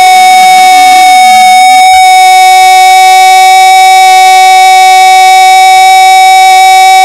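Football commentator's long drawn-out goal cry, a single unbroken 'gooool' held at one high, steady pitch and very loud.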